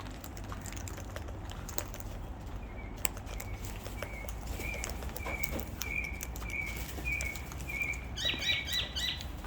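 A bird chirping repeatedly, about two short thin chirps a second, then a quick run of louder chirps near the end, with scattered faint clicks.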